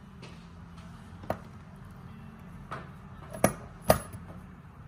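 Metal clicks and clinks of an adjustable wrench and scuba regulator parts against a steel vise holding block: a couple of light clicks, then two loud clinks about half a second apart near the end.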